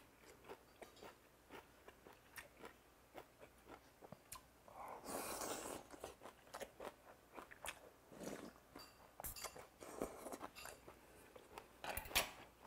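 Close-up mukbang chewing: a person crunching crisp raw vegetables and goby sashimi in cold doenjang broth, with many small wet clicks. About five seconds in there is a longer noisy slurp, as broth is drunk from the bowl.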